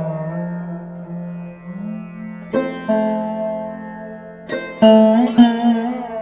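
Background music of sitar-like plucked strings, with sharp plucked notes and sliding pitch bends over a steady low drone.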